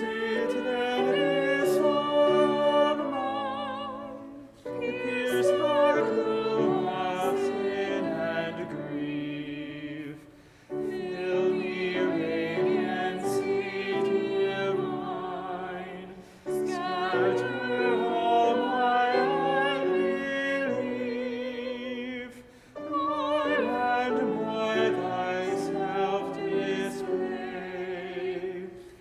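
Church music: classical-style singing with vibrato on held notes, in phrases of about six seconds with short breaks between them.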